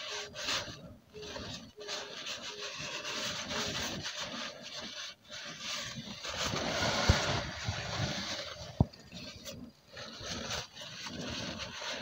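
Paper towel rubbing and wiping in gloved hands, cleaning leftover assembly grease off a freshly replaced output seal where the propeller shaft yoke enters the transfer case. Two small sharp clicks come in the second half.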